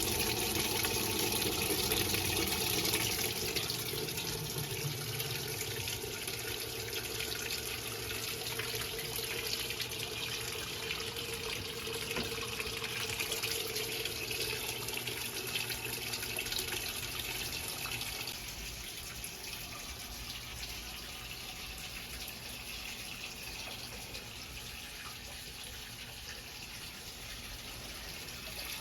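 Electrolux LE06DBD top-load washing machine filling with water: a steady rush of water pouring into the drum, gradually getting quieter.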